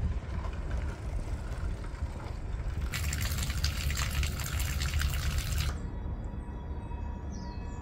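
Water trickling and splashing from a pipe spout into a stone purification basin. It starts about three seconds in and cuts off sharply under three seconds later, over steady background music.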